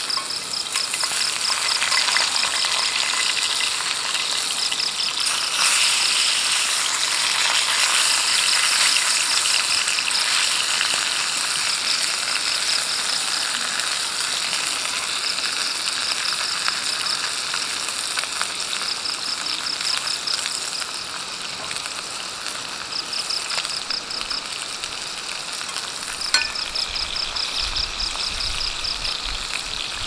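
Meat frying in a skillet over a charcoal fire: a steady sizzle, loudest in the first half and easing later. Short trains of rapid insect chirps recur every few seconds behind it, and one sharp click comes near the end.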